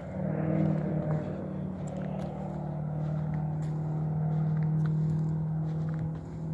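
An engine running steadily, a low droning hum with an even pitch throughout.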